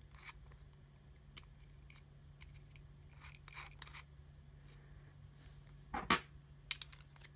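Faint metallic clicking and rubbing from a keyed drill chuck being twisted by hand to grip a 3.5 mm drill bit, then a few sharper metal clinks about six seconds in as the steel chuck key is picked up off the table. A low steady hum runs underneath.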